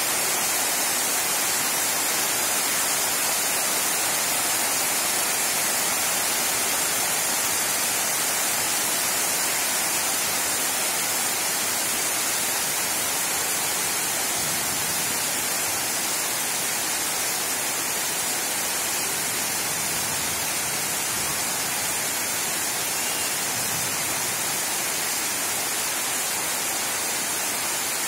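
Heavy monsoon rain falling steadily: a dense, even hiss of rain on leaves and rooftops that does not let up.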